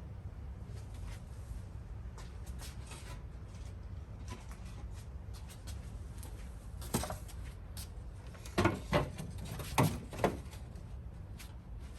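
Handling noises as DIY materials are worked by hand: light clicks and rustling, with a few louder sharp knocks about seven to ten seconds in, over a low steady rumble.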